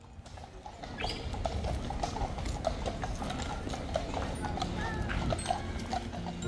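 Horses' hooves clip-clopping on a hard road, an irregular run of hoof strikes from more than one horse walking.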